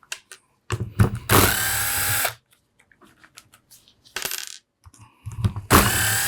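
Small power driver spinning out the case screws in two runs, one early on and one from about five seconds in, with a short blip just past four seconds. Light metallic clicks of screws and parts are heard in between.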